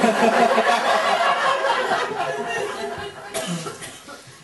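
Theatre audience laughing, loudest at the start and dying down over a few seconds.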